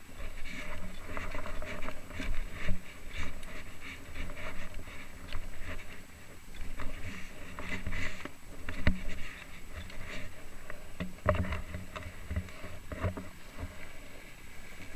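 Skis sliding and scraping over a groomed, packed-snow piste, with wind rumbling on the camera's microphone and a few sharp knocks later on.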